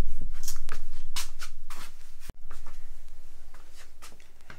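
Light scattered clicks and rustling from hands handling a hub-motor scooter wheel and its fork and brake-disc parts, over a steady low hum.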